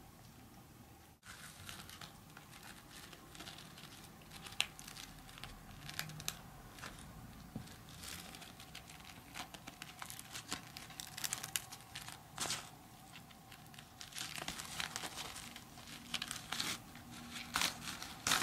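Woven straw hat crackling and rustling in irregular short bursts as a cat claws, bites and kicks at it, the loudest scrunches near the end.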